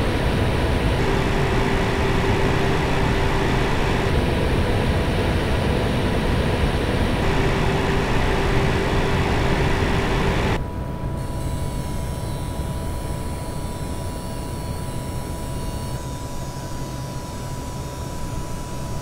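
Graphics card cooling fans running steadily at full benchmark load inside a closed PC case: an MSI GTX 1080 Ti Armor, then a Sapphire Radeon RX 7600 Pulse. About ten seconds in the sound drops noticeably quieter, and a thin, steady high tone is left: the coil whine being checked.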